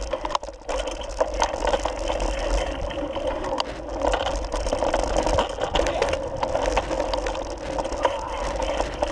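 Mountain bike rattling and clattering over a rough dirt singletrack, with rapid clicks and knocks from the bike and a low rumble underneath.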